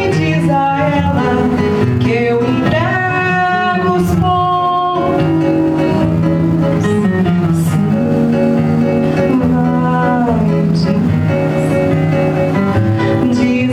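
Acoustic guitar playing with a woman singing a melody over it.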